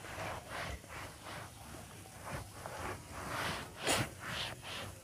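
Microfiber cloth rubbing back and forth over a plastic car-door trim panel, a rhythmic swishing of two to three strokes a second, the finishing wipe after the panel was cleaned with foam shampoo.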